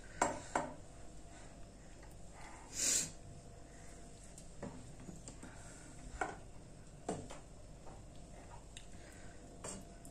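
Faint, scattered clicks and scrapes of a plastic ladle against a non-stick frying pan as thick creamy chicken sauce is spooned out, with one short breathy rush of noise about three seconds in.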